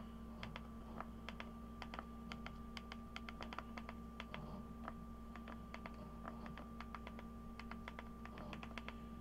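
Typing on a computer keyboard: quick runs of key clicks with short pauses between them, over a faint steady electrical hum.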